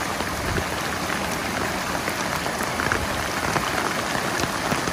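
Steady rush of heavy rain and fast-flowing floodwater running over rock, with scattered small splashes.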